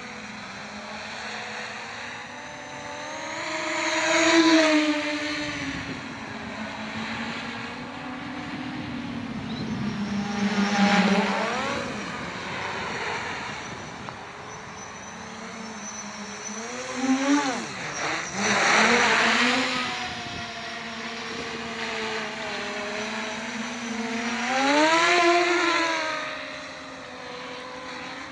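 Electric motors and propellers of a small VTOL multirotor in flight: a steady buzzing hum that four times swells louder and rises in pitch as the throttle is opened, then settles back.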